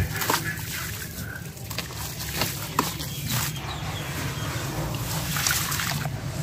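Chunks of wet sand and dirt crumbling and dropping into a plastic tub of water, with a few sharp splashes in the first three seconds. After that, hands swish and slosh the muddy water in the bottom of the tub.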